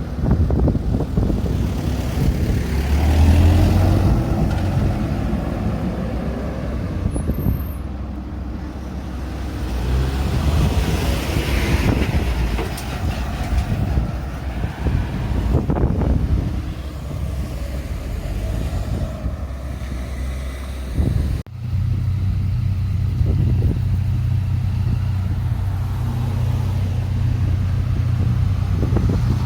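Road traffic: cars and trucks passing through an intersection, rising and fading one after another. About two-thirds of the way through the sound breaks off sharply, and a steady low hum carries on after it.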